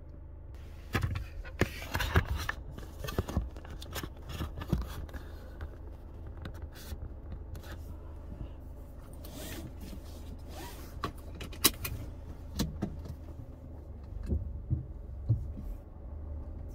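Car engine idling with a steady low hum inside the cabin, under a string of irregular clicks, knocks and rattles from things being handled in the front seat, thickest in the first few seconds.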